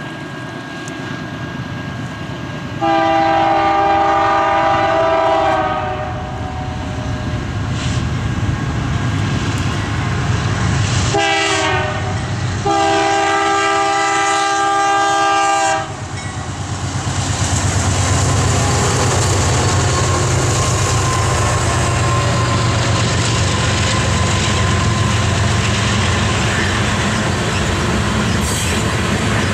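A GE Dash 9-44CW diesel locomotive's air horn sounding the grade-crossing signal: a long blast about three seconds in, a short one, then a long one. After the horn stops, the locomotives' diesels and the freight cars rumble and clatter past on the rails.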